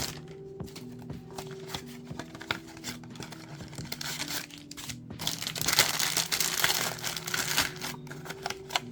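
Trading card booster pack wrappers being crinkled and torn open, loudest in a stretch of crackling about five and a half seconds in.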